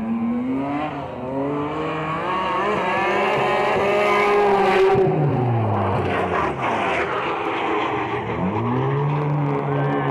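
Drift cars' engines revving hard, their pitch repeatedly rising and falling as the drivers work the throttle through the slides, with more than one engine at once, the pitches crossing about six seconds in. A hiss of tyre noise runs beneath, strongest around the middle.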